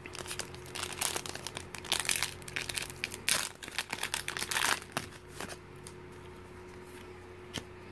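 Foil booster pack of Pokémon trading cards being torn open and crinkled, a crackling rustle that lasts about five seconds. After that only a faint steady hum remains, with one small click near the end.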